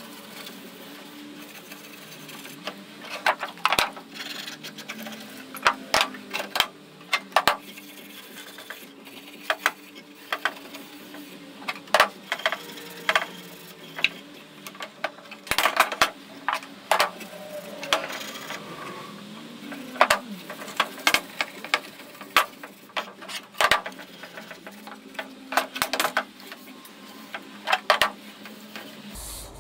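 A cloth rag wiping oil onto a wooden fence on a metal saw table. Scattered sharp clicks and knocks come at irregular moments throughout, as the rag, fence and a metal oil tin are handled.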